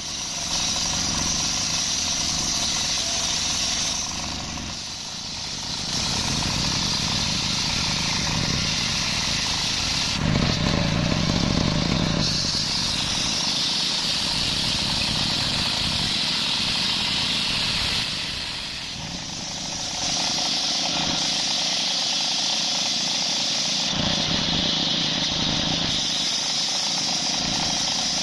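Engine-driven table circular saw ripping a coconut log into boards: a high, hissing cutting sound over the steady running of the engine. The cutting eases off briefly about 5 and 19 seconds in, between passes.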